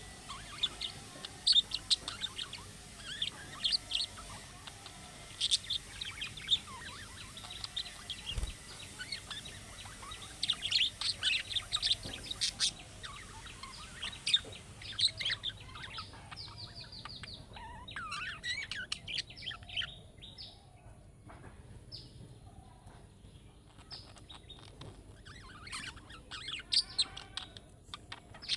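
Budgerigars chirping and warbling in quick clusters of short, high calls.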